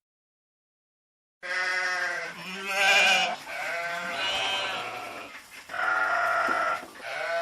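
Several sheep bleating in overlapping calls, starting suddenly about a second and a half in after silence. One higher, louder bleat stands out about three seconds in.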